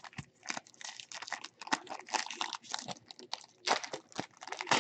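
Trading-card pack wrapper being opened and handled: irregular crinkling and crackling that stops near the end.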